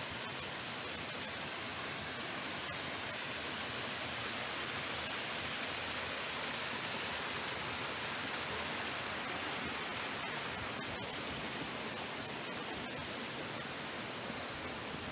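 Steady rush of falling water from a waterfall, an even hiss with no let-up.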